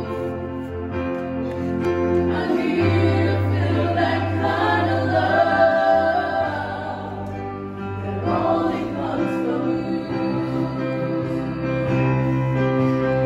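Choir singing a slow hymn over steady, sustained accompanying chords, with one voice standing out about five seconds in.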